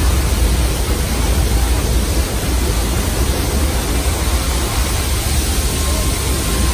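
Flash-flood special effect: a torrent of water pouring and crashing down close by in a loud, steady rush, with a deep rumble underneath.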